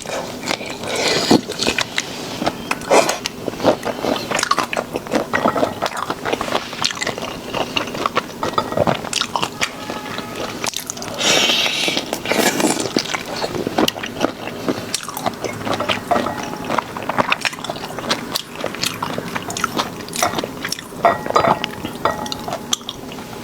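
Close-miked eating of spicy sauced shrimp: irregular chewing, crunching and wet mouth clicks, with some scraping.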